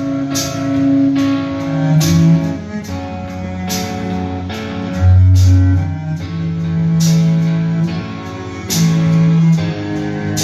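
Band music with strummed guitar, a heavy bass line and regular cymbal hits, played loud through a concert sound system.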